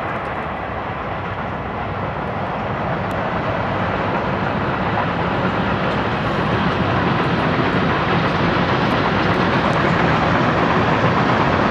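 BNSF grain train passing: the diesel locomotives and a long string of covered hopper cars rolling along the track, a steady noise of engines and wheels on rail that grows gradually louder as the train comes closer.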